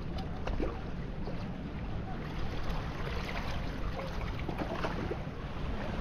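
Small waves lapping and splashing among shoreline rocks in shallow water, with irregular little splashes over a steady rumble of wind on the microphone.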